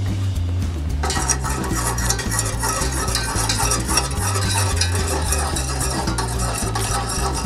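Wire whisk stirring and scraping against the sides of an enamel saucepan, starting about a second in, working cornstarch into a simmering lemon-butter sauce to thicken it.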